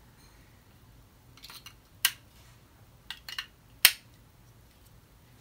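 Small, sharp plastic clicks and taps from handling a toy's battery cover and battery holder with a small screwdriver, about six in all, the loudest about two and about four seconds in.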